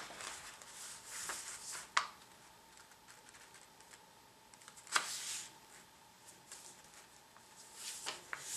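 A sheet of 8.5 by 11 paper rustling and crinkling under the hands as it is folded and pressed flat against a wooden tabletop, with two sharp taps about two seconds in and again about three seconds later. A faint steady hum sits underneath.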